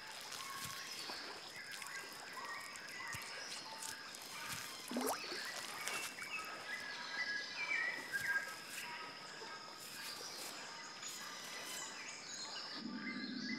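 Rainforest ambience: many birds chirping and whistling in short notes over a steady high insect drone, with a rising whistle about five seconds in.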